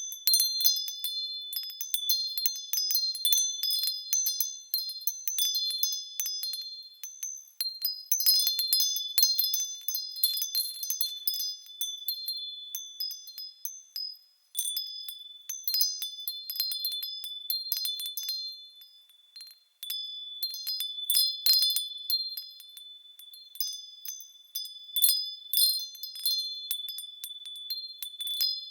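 Wind chimes tinkling: a few high ringing notes struck over and over in irregular clusters, with two brief lulls around the middle.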